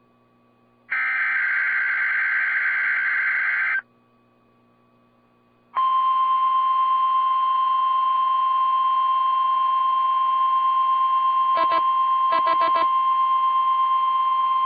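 NOAA Weather Radio alert signalling: a buzzing SAME digital header burst of about three seconds, then after a two-second pause the steady 1050 Hz warning alarm tone for about nine seconds, broken twice near the end by brief crackles. It is the alert sequence of a Required Weekly Test.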